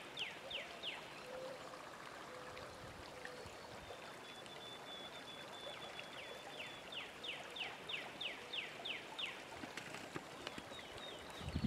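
Shallow creek water running steadily, with a songbird singing runs of quick down-slurred whistles, about four a second, at the start and again for a few seconds past the middle.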